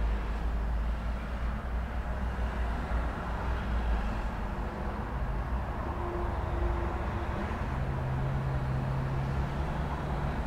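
Traffic at a busy road intersection: a continuous low rumble of passing vehicle engines and tyre noise. A steady low hum joins in about three-quarters of the way through.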